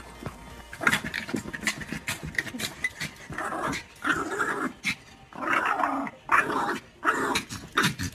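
A dog growling in a run of short bursts, with sharp clicks and scuffling sounds between the growls.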